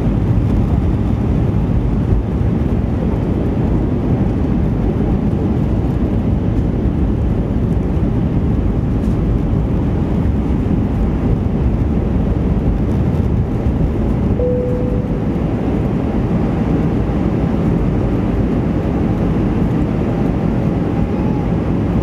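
Cabin noise in an Airbus A320 descending on approach: the steady rush of airflow and drone of the engines, heavy in the low end. A short faint tone sounds briefly about two-thirds of the way through.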